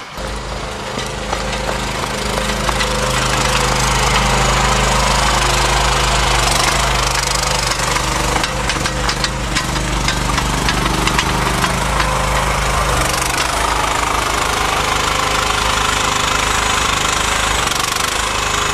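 Mini excavator's engine running steadily, with a cluster of clicks and rattles from the machine about halfway through.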